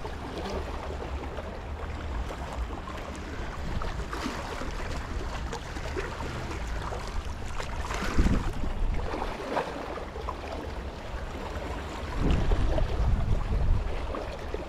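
Small waves lapping and splashing against breakwater rocks, with wind rumbling on the microphone; the wind gusts harder about twelve seconds in.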